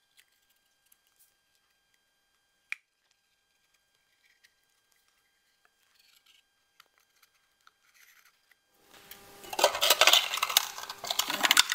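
A few light taps and a single sharp click, then from about nine seconds in a loud run of scraping and crackling as the top plate of a HiBlow septic aerator is pried off its lower chamber, the brittle old gasket between them breaking apart.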